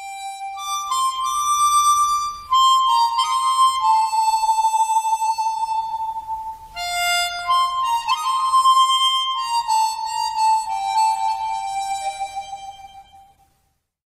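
Harmonica playing a slow melody of held notes, fading out near the end.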